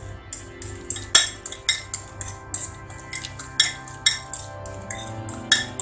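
A fork mashing a banana in a bowl, its tines clinking repeatedly and irregularly against the bowl, over background music.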